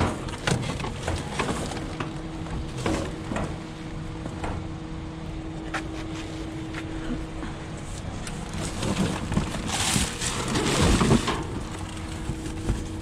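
Rummaging through a metal dumpster: cardboard boxes and plastic items knocked and shuffled against the metal sides, with scattered clatters and a stretch of crinkling plastic bags near the end. A steady low hum runs underneath.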